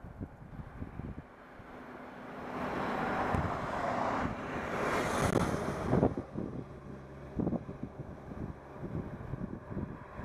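Wind rumbling and buffeting on the microphone during a road bike climb, with a rushing noise that swells over a few seconds and cuts off suddenly about six seconds in.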